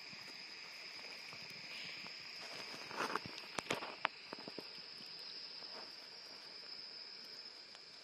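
Wood campfire crackling, with a cluster of sharp pops about three to four seconds in, over a steady high chirring of night insects.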